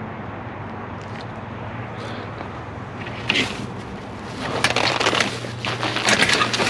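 Scrap being rummaged through in a dumpster: a sharp knock about three seconds in, then a loud run of clattering knocks as objects are moved and shifted, over a steady low rumble.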